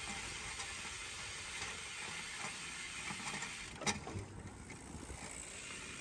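Bicycle in motion on a paved path: a steady rush of tyre and wind noise with light ticking, and one sharp click a little before four seconds in.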